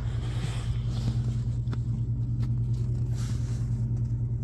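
A steady low hum, with a few faint ticks over it.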